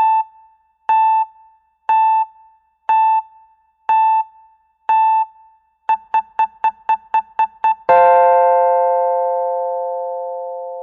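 Countdown timer's electronic beeps: six single beeps a second apart, then a quick run of eight faster beeps, then a long three-note chord tone that fades and cuts off about three seconds later, the signal that time is up.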